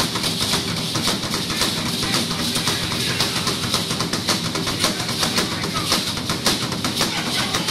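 Percussion music: drums struck in a fast, dense rhythm over a steady high hiss.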